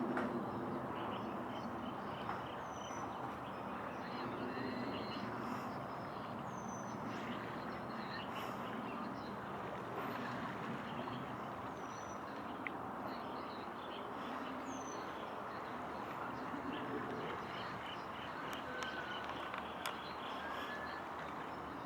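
Steady outdoor background noise, with about four short, high, falling bird chirps scattered through it.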